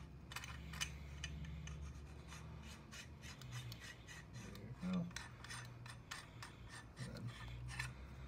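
Metal lightsaber hilt parts being twisted together by hand: faint scraping of the screw threads and fingers on the metal, with many small clicks.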